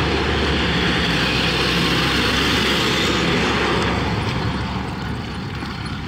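80cc two-stroke motorized bicycle engine running at speed, mixed with a dense rush of wind and road noise that eases about four seconds in.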